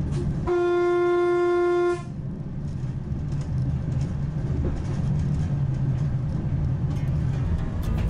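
Renfe 120 Alvia train's horn sounding one low note for about a second and a half, the second note of a two-tone blast, followed by the steady low rumble of the train running on the rails.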